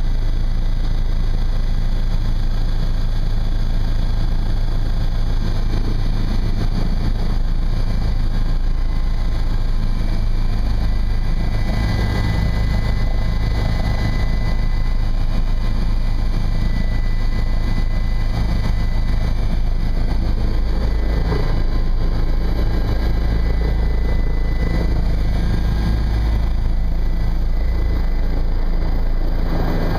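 Helicopter's turbine engine and rotor running steadily, heard from inside the cabin as it descends and sets down on a helipad.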